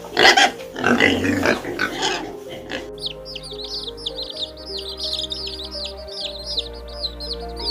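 A pig grunting and squealing in short bursts, then, about three seconds in, a run of rapid high chirps from chicks peeping, several a second, over background music with held notes.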